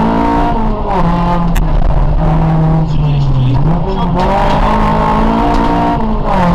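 Honda Civic rally car's engine heard from inside the cabin at full stage pace. The engine note falls and rises repeatedly as the driver lifts off and gets back on the throttle: it drops in the first second, picks up again, sags for a couple of seconds midway and climbs once more near the end.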